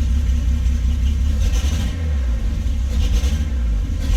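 Datsun 280Z's straight-six engine running through a freshly made custom exhaust, a steady deep rumble, with two brief hissy bursts about a second and a half in and again near three seconds. The mock-up exhaust has loose fittings and is expected to leak.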